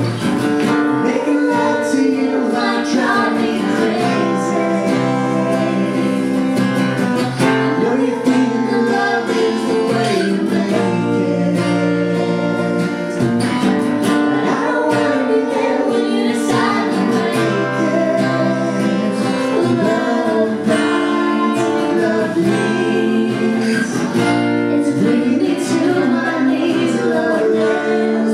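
Acoustic guitar played along with a man and a woman singing together.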